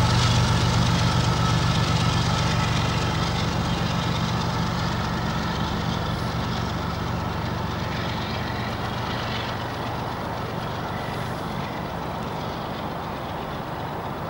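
Union Pacific diesel-electric locomotive running with a steady low drone, fading as it moves away down the track.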